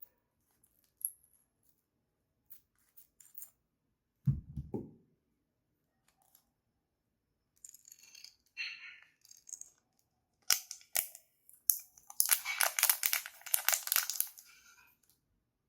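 Close-up handling sounds: scattered light taps and clicks, a dull thump about four seconds in, then a few seconds of dense crackling, tearing noise near the end, like packaging or material being torn.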